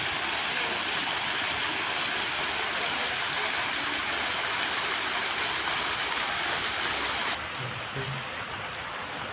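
Ground-level fountain jets spraying and splashing down onto the wet paving in a steady watery hiss. The hiss drops suddenly and turns fainter about seven seconds in.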